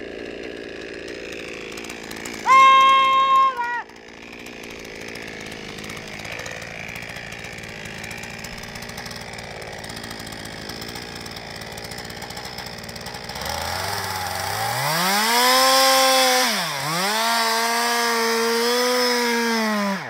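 Chainsaw running at the base of a tree: steady at first, then from about two-thirds of the way in it revs up to full throttle, dips briefly as the chain bites into the cut, and runs at high revs again. About two and a half seconds in, a loud high steady tone sounds for about a second.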